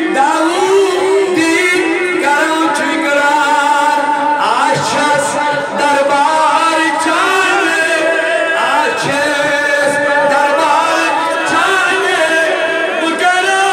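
A man singing a naat, a devotional poem in praise of the Prophet, unaccompanied, with long wavering held notes.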